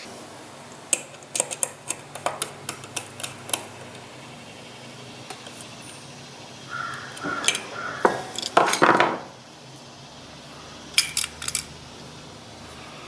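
Small metal parts and tools clinking and tapping together as they are handled on a workbench, with a denser rustling clatter about halfway through and a few more clinks near the end, over a faint steady hum.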